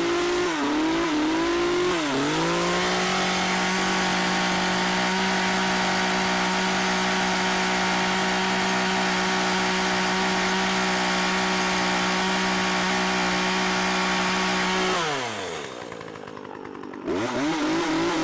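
Chainsaw engine revved up over the first couple of seconds and held at a steady high-speed whine for about twelve seconds. It drops back to a lower, quieter run about fifteen seconds in, then revs up again near the end.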